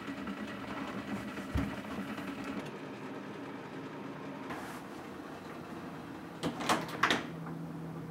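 A refrigerator door and a glass beer bottle being handled: faint room tone, then a quick cluster of clinks and knocks about six and a half seconds in, followed by a short low hum.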